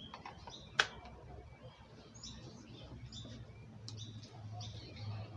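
One sharp click about a second in as a large tracker knife snaps home in its Kydex sheath. Faint bird chirps sound in the background.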